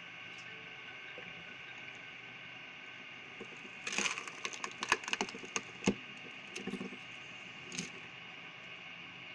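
Wood cracking and splintering in a quick series of sharp cracks about four seconds in, with a few weaker cracks after, over the steady hum of a running machine.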